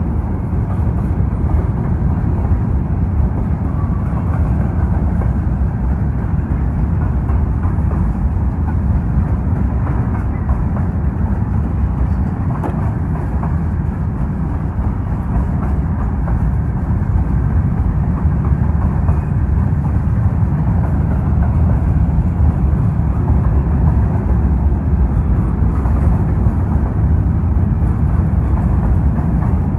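Empty grain hopper cars of a long freight train rolling past, a loud steady rumble of wheels on rail.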